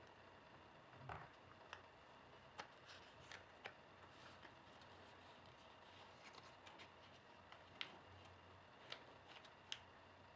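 Faint, scattered crackles and soft taps of a square of origami paper being folded and creased flat, over a low room hiss.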